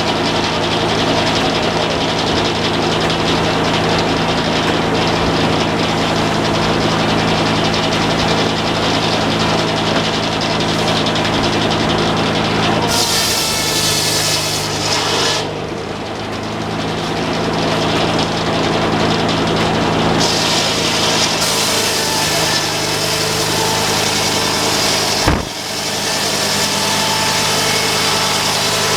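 Sawmill engine running steadily, with two stretches of added high-pitched hiss. A single sharp knock comes near the end.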